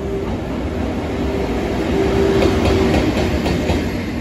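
EF81 electric locomotive running light past, with a steady hum and a run of wheel clacks over rail joints. It is loudest about two to three and a half seconds in.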